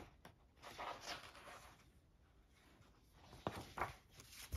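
Faint handling of cardboard and paper record packaging: a soft rustle or slide about a second in, then two light taps a little after three and a half seconds.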